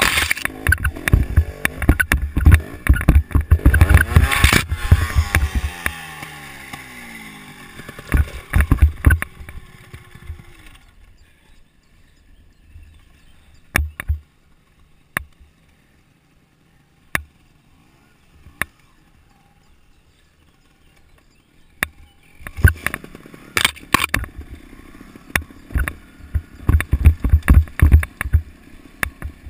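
Montesa trial motorcycle riding over a rocky dirt trail: the engine runs hard with clattering knocks for the first few seconds, then winds down with a falling pitch. A long quiet stretch with scattered clicks follows, and engine and clatter return for the last several seconds.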